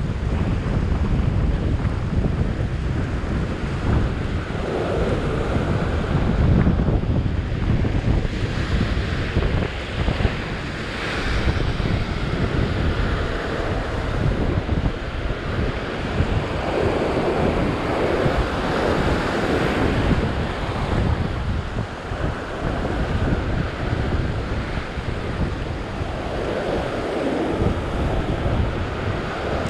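Ocean surf breaking and washing over rock ledges, swelling louder as each wave comes in, with wind buffeting the microphone as a steady low rumble.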